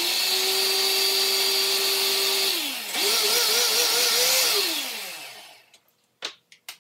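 Countertop blender with a glass jar running, blending hot coffee with butter into a foam. A steady whir for about two and a half seconds, a brief dip, then a second run with a wavering pitch that winds down with a falling pitch about five seconds in. A few light clicks near the end.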